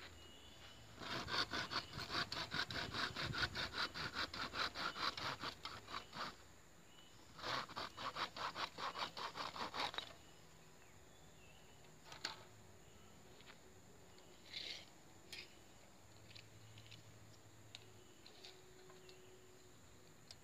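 Hand saw cutting through a wooden stick in quick, even back-and-forth strokes, in two bouts with a short pause between, followed by a few light taps and knocks.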